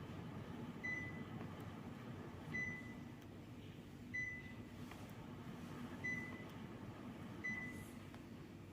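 Panasonic mini-split air conditioner's indoor unit beeping five times, short high beeps about every one and a half to two seconds, the acknowledgement beep it gives on each remote-control command. Under the beeps is the steady low hum of the running unit.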